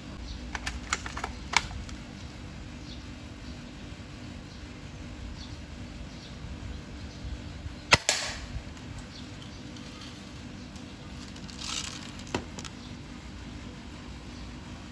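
Upgraded D-Cobra airsoft gun firing: one sharp crack about eight seconds in with a brief ring after it, light clicks near the start, and a softer hiss followed by a click about four seconds after the shot.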